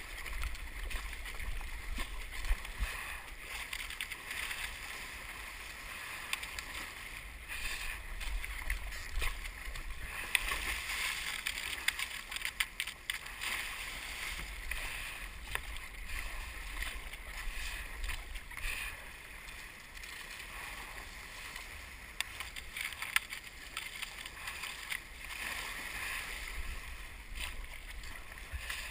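Water hissing and splashing along the hull of an Epic V10 Sport surf ski under way in rough swell, with frequent short splashes from the paddle blades. A low rumble of wind on the microphone runs underneath.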